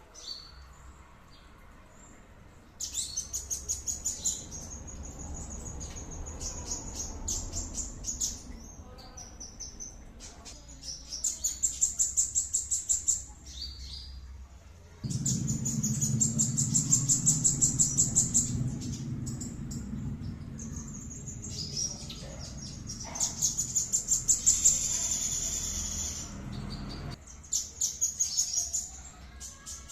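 Songbird song used as a 'masteran' training recording: several bursts of fast, repeated high chirping notes, each lasting a few seconds, with short pauses between. A low hum runs under the song through the middle part.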